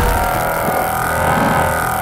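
Sci-fi energy-beam sound effect for a microwave fired as a weapon: a steady electronic hum of several layered tones over a low rumble.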